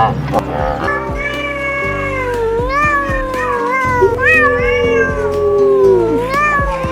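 A cat meowing in long, drawn-out calls that rise and fall in pitch, several in a row, over background music.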